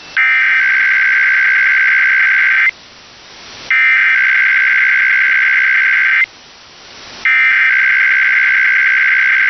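Emergency Alert System SAME header: the two-tone digital data burst sent three times, each burst about two and a half seconds long with about a second of hiss between them. It is the coded header that opens a Required Weekly Test alert.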